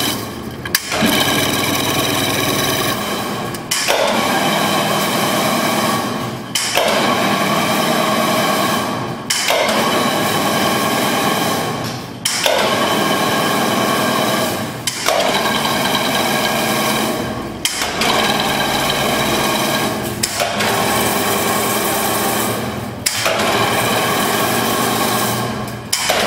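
Semi-automatic spiral wire chain-link weaving machine running in repeated cycles. Each run of about two and a half seconds is a steady mechanical whir, then a brief pause, and the next cycle starts at once, about ten times over.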